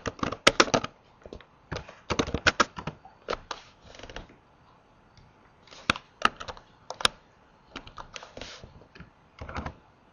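Typing on a computer keyboard: short runs of clicking keystrokes with brief pauses between them, and a quiet gap of over a second midway.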